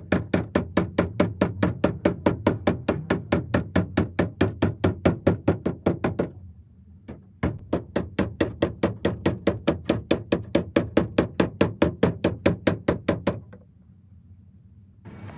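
Rapid, evenly spaced hammer blows, about four to five a second. They stop for about a second with a single blow in the gap, resume for about six seconds and stop near the end.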